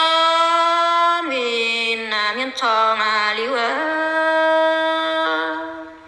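A single unaccompanied voice sings an Iu Mien traditional song (zung) in long held notes with ornamented turns. The pitch drops after about a second, and the phrase fades out near the end.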